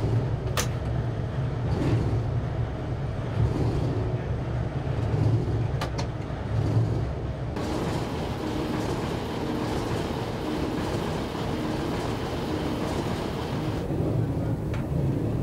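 A locomotive cab rumbles steadily as the train rolls along the rails. Two sharp clicks come, one about half a second in and one near six seconds.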